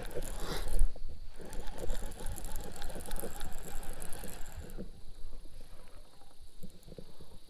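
Baitcasting reel being cranked, winding line back in, over wind rumble on the microphone. The winding is busiest through the first half and eases after about five seconds.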